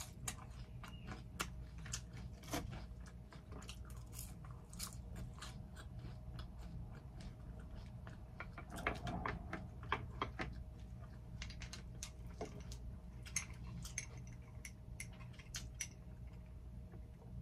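Close-miked chewing and biting of a cheeseburger: wet mouth clicks and small crunches coming irregularly, busiest about halfway through and again near the end, over a faint steady hum.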